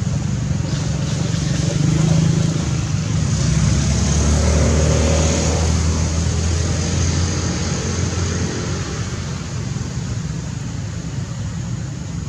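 A motor vehicle's engine passes by: its low rumble swells to a peak a few seconds in, then fades away.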